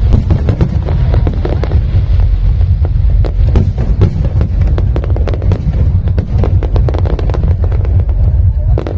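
Aerial fireworks going off in rapid succession: dense crackling and popping over a continuous low rumble of bursts.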